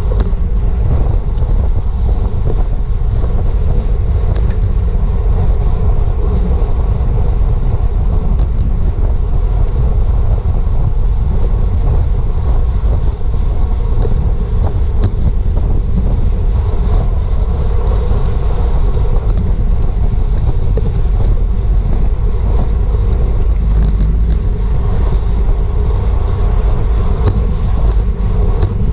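Wind rushing over a GoPro's microphone on a racing road bicycle at speed: a loud, steady low rumble, with a few sharp clicks scattered through it.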